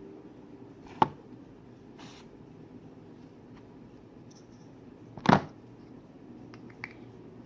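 A sharp knock about a second in and a louder, short knock a little past five seconds, with a few faint clicks near the end, over a low steady hum: objects being handled and set down.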